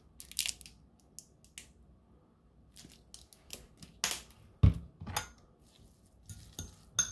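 Kewpie mayonnaise squeeze bottle squirting in short bursts onto shredded crab meat in a ceramic bowl. About four and a half seconds in the bottle is set down on the counter with a thump, followed by a fork scraping and clinking in the bowl as the crab and mayo are mixed.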